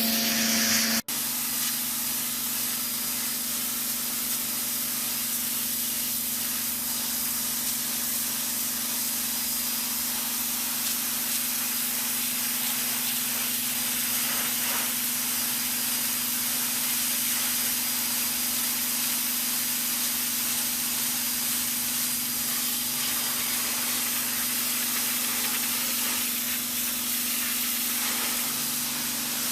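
Sun Joe SPX4000 electric pressure washer running steadily: a constant motor-and-pump hum under the hiss of the water jet spraying concrete, with a brief break about a second in.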